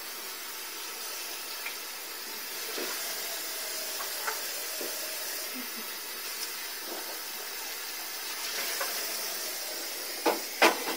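Kitchen tap running water into a cup as dishes are rinsed in the sink, with a few light clinks. Two sharp clatters near the end.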